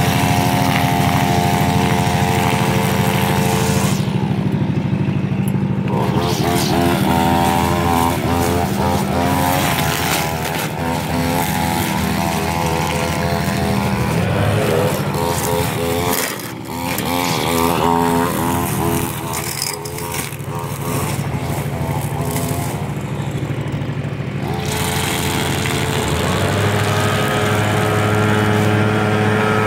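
Gas string trimmer engine running while cutting grass. Its pitch holds steady at first and near the end, and wavers up and down through the middle as the throttle is worked.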